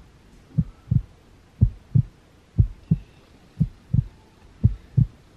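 Heartbeat sound effect, a steady low lub-dub about once a second, five double beats in all.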